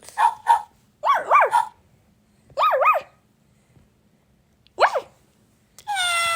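Dog barking: four short barks that bend in pitch, about a second apart, then a long, steady, higher call begins near the end.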